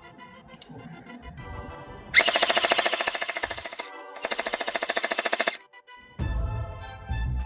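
Electric gel blaster firing two rapid full-auto bursts of about a second and a half each, with a short pause between, over background music.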